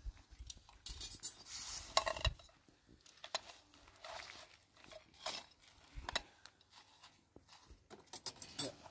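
Metal utensils and dishes clinking and knocking during cooking: an irregular scatter of short clicks with a few brief scraping rustles.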